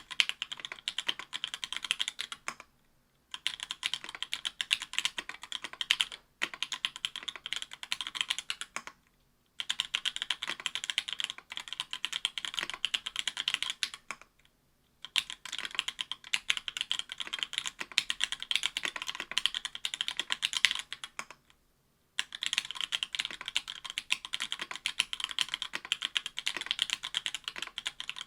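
Fast typing on an Octagon V3 mechanical keyboard with stock Link Studio Jungle 62g linear switches on an aluminum plate under GMK keycaps. The keystrokes come in runs of a few seconds, broken by brief pauses about five times.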